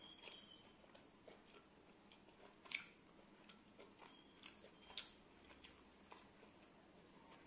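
A person quietly chewing mutton curry with rice, with scattered small wet clicks and smacks, the sharpest about three and five seconds in.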